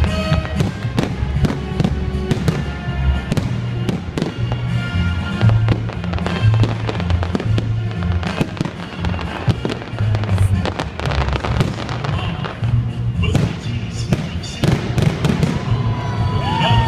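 Fireworks salute: a dense run of bangs and crackles from aerial shells bursting one after another. Music with a deep bass line plays under them, and a short whistle glides near the end.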